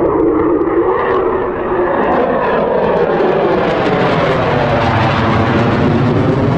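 Fighter jet engine noise: a loud, steady rush with a sweeping, shifting tone, as of a jet passing by.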